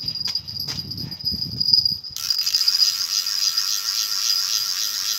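A small bite-alarm bell on a fishing rod jingles with a steady high ring as the rod is lifted and handled. From about two seconds in, the fishing reel is cranked with a fast, even rattling whir. The rod is being reeled in on a bite that proves false.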